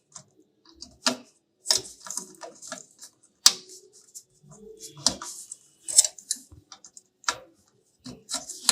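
Irregular plastic clicks and rattles of a PC power supply's auxiliary CPU (VRM) power connector and its cable being handled and pushed onto the motherboard's socket, with the sharpest click about three and a half seconds in.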